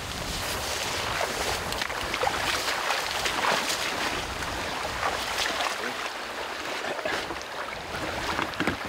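Rustling and swishing of tall grass and footsteps as a person climbs out of an inflatable boat and walks through the grass on the bank, with irregular crackling brushes throughout and wind rumbling on the microphone.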